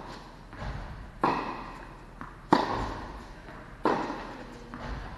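Tennis balls struck by rackets in a baseline rally: a sharp pop about every second and a quarter, each ringing on in the echo of a large indoor hall.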